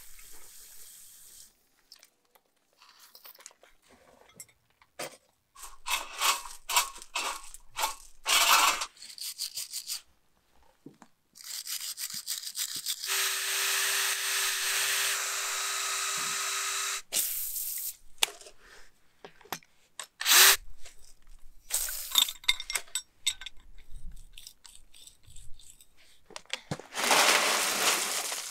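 Cordless drill fitted with a small cut-off disc grinding through a steel anchor bolt at the concrete slab, running steadily for about six seconds near the middle. Around it, scraping and clicking of hand tools on the bolts, with one sharp knock.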